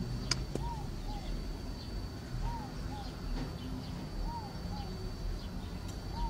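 A bird calling repeatedly in pairs of short rising-and-falling notes, a pair about every two seconds, over a steady low outdoor rumble.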